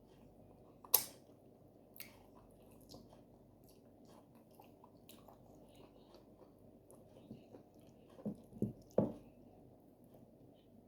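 Close-miked eating sounds of oat fufu with slimy okra soup: soft wet squishes and chewing. There is a sharp click about a second in, and a few louder squelches near the end.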